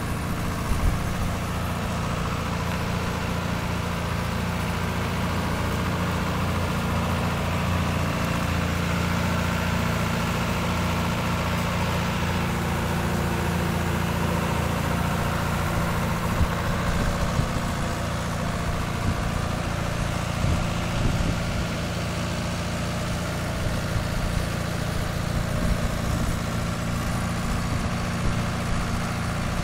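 John Deere 2755 tractor's four-cylinder diesel engine running steadily while it pulls a fertilizer applicator through the soil, with a few short clanks from the implement along the way.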